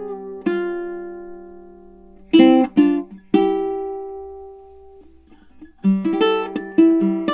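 Tenor ukulele with a sabicu body and redwood top, fingerpicked in an improvisation. A few notes are plucked and left to ring and fade, then after a short pause a quicker run of notes starts near the end.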